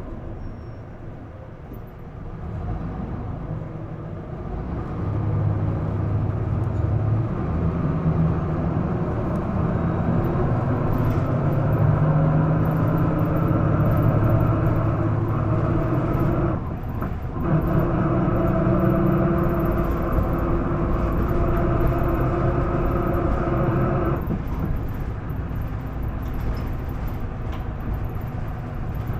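Isuzu Erga city bus's diesel engine heard from the passenger cabin, pulling hard under acceleration with a whine over the engine note; this bus is known for making an abnormal noise. The engine climbs in pitch for most of the first half, dips briefly about halfway through as the gear changes, pulls again, then falls away about three-quarters through when the throttle is lifted.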